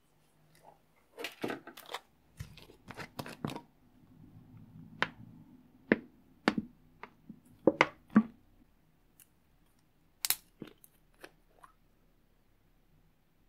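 Plastic bottles and a plastic tub handled on a tabletop: a run of sharp plastic clicks and knocks, with bottle caps being opened and snapped. The loudest clicks come between about six and eight seconds in, with one more near ten seconds.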